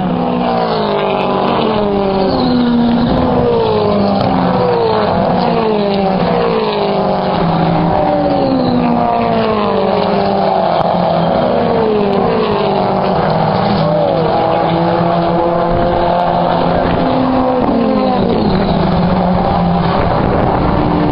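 Several touring car engines racing at once, their notes rising and falling in pitch as the cars accelerate, change gear and pass.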